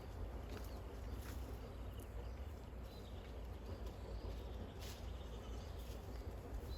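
Cows eating soil: a few sharp crunching clicks of chewing over a steady low rumble.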